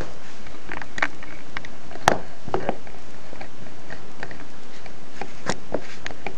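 Irregular plastic clicks and clacks from a Lego-brick rifle being handled and its mechanism worked, with one sharp snap about two seconds in the loudest, over a steady hiss.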